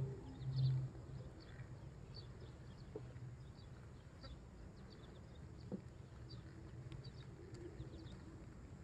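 Quiet pasture ambience with many short, high bird chirps scattered through it. A low animal call dies away under a second in.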